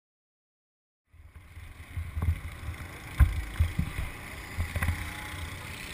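Silence for about a second, then low buffeting rumble from wind on an outdoor camera microphone, with two sharp knocks, the first the loudest.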